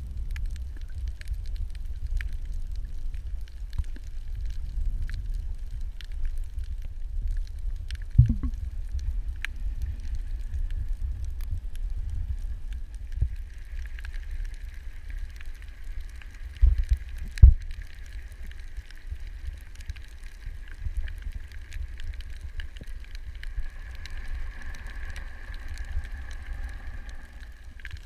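Underwater ambience recorded on a camera's microphone: a steady low rumble with scattered clicks and a few thumps, and from about halfway through a faint steady high hum.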